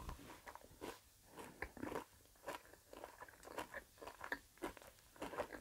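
Close-miked mouth chewing a small milk-chocolate egg with bits of hazelnut in it: soft irregular crunches and wet mouth clicks, several a second.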